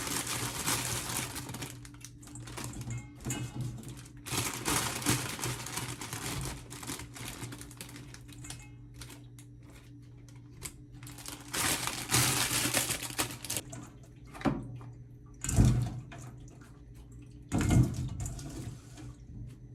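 Kitchen work sounds: scattered clicks and knocks of utensils and dishes, with bursts of running water and a few sharper knocks in the second half, over a steady low hum.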